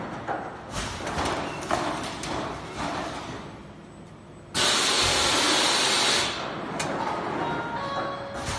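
A CHL H6 oval screen printing machine running, with mechanical clatter, clicks and sliding of its moving parts. Just past halfway a loud hiss blows out at a print head for about a second and a half, then cuts off and the machine's running noise carries on.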